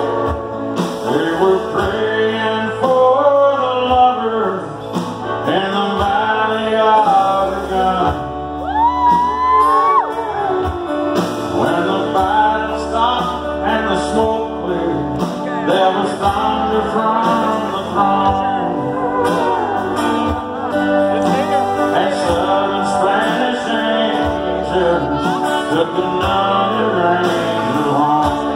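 Live country band playing: electric and acoustic guitars, keyboards, organ and drums, with a lead melody that slides and bends between notes over sustained chords and a steady bass.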